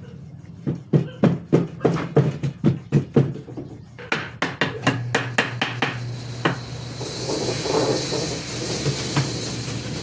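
Hammer blows on wood in two quick runs, about three strikes a second, during furniture assembly; after that a steady hiss takes over.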